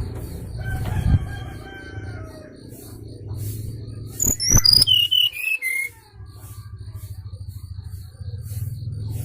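Bird-lure (pikat) call for the SRDC: a short run of falling whistled notes, then about four seconds in a louder run of high whistles stepping steeply down in pitch. A steady low hum and a faint, evenly repeating high pulsing run underneath.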